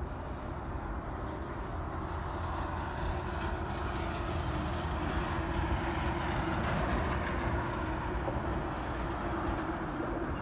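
A steady, low engine rumble with a faint whine, swelling a few seconds in and easing off near the end.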